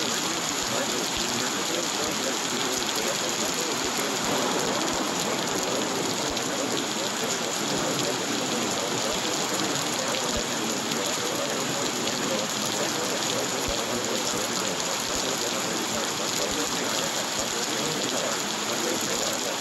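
Steady rain falling, an even continuous hiss with fine patter and no breaks.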